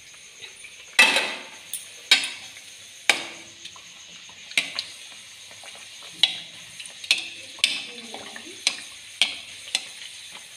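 Aloo kachori deep-frying in hot oil in an aluminium kadhai, a steady sizzle. Over it a metal ladle knocks sharply against the side of the pan one to two times a second, loudest in the first few seconds.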